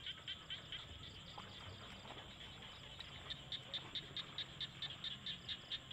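Frogs calling in a rapid, even series of short high chirps, about five a second, louder past the middle, over a faint steady high tone.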